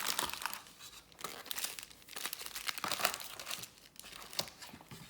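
Plastic wrapping of a trading-card box or pack crinkling and tearing as it is opened by hand, in crackly spurts near the start, in the middle and near the end.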